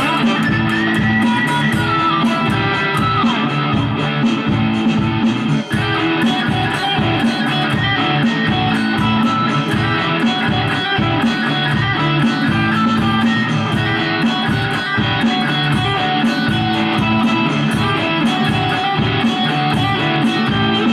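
Telecaster-style electric guitar with active humbuckers playing improvised lead lines over a looped rhythm-guitar backing track and a steady drum beat, with a few bent notes.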